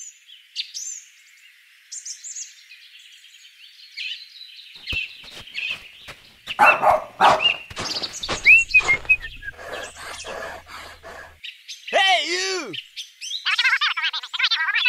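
Birds chirping for the first few seconds, then a run of louder cartoon-style sound effects with squeaky, voice-like tones. About twelve seconds in comes a wobbling tone that falls in pitch.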